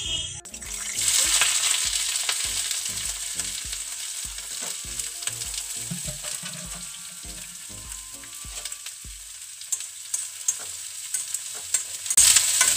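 Green chillies sizzling as they fry in hot oil in a steel kadhai, stirred with a spoon. The sizzle flares up about half a second in, slowly dies down, then grows loud again near the end as the pan is stirred.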